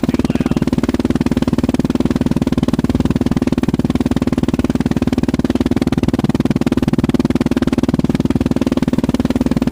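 Yamaha Grizzly 660 ATV's single-cylinder four-stroke engine idling steadily through an aftermarket slip-on muffler, with an even, rapid pulsing exhaust beat and no revving.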